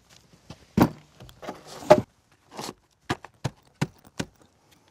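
A heavy wooden sill beam being set down and shifted into place on blocks: two heavy thuds about a second apart with scraping of wood between them, then four sharp knocks about a third of a second apart.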